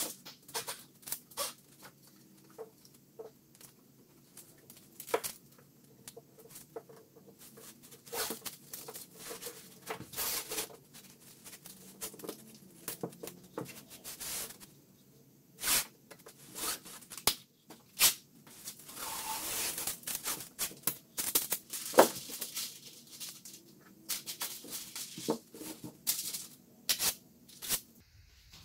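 Blue painter's tape being pulled off its roll and torn in many short rips, with a longer pull about two-thirds of the way through. Between the rips, stiff brown masking paper crinkles as it is pressed down on the floor.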